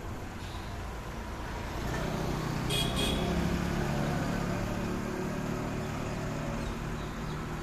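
Road traffic: a truck's engine comes up and runs steadily as it passes on the street. Two short high-pitched sounds come close together about three seconds in.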